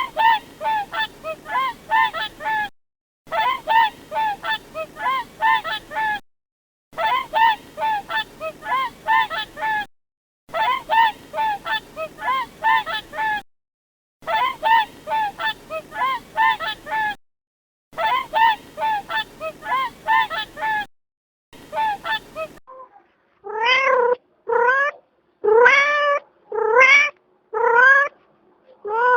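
Geese honking in quick runs of short calls, the burst repeating six times with brief pauses. About 23 seconds in, a cat takes over with six drawn-out meows.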